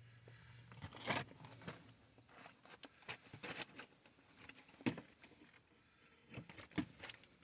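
A person chewing gummy fruit snacks, with irregular soft mouth clicks and smacks.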